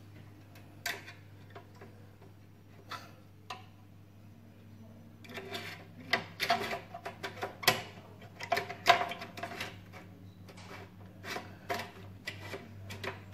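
Clicks, taps and rattles of oven door parts and tools being handled, a few separate knocks at first and then a busy run of clatter from about five to ten seconds in, over a low steady hum.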